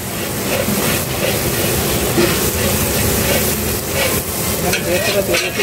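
Sliced onions frying in hot oil in a large aluminium kadai, sizzling steadily, while a long metal ladle stirs and scrapes through them.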